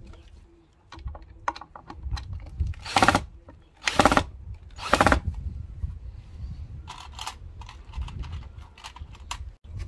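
Clicks and clatter of handling a cordless drill battery and tools from a plastic case, with three short loud bursts of noise about a second apart near the middle. Wind rumbles on the microphone.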